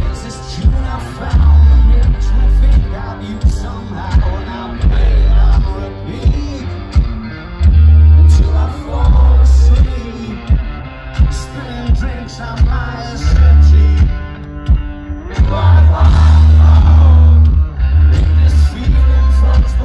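Live rock band playing loud through a festival PA: a male lead singer sings over electric guitar, a steady drum beat and heavy, booming bass. It is heard from within the crowd.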